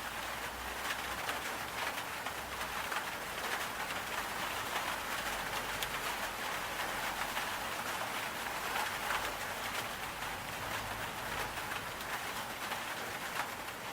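Steady rain falling: a dense, even hiss with many small drop impacts ticking through it.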